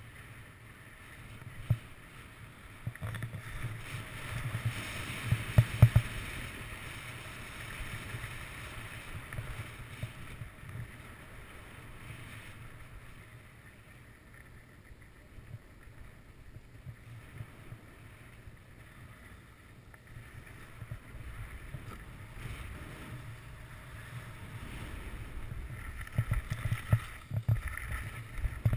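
Skis sliding and scraping over packed snow on a downhill run, with wind buffeting the microphone. The scraping swells in louder stretches around five seconds in and near the end, with a few sharp knocks, and is quieter in between.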